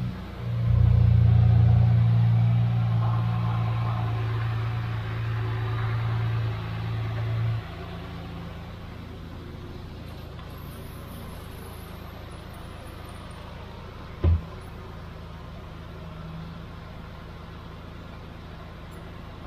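Unimog 404's petrol straight-six engine running steadily: louder and higher for the first seven or so seconds, then settling to a quieter low idle. A single short knock about fourteen seconds in.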